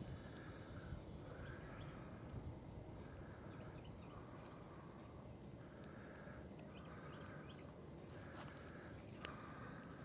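Insects droning steadily outdoors, with a buzzy call repeating about once a second and a few faint clicks.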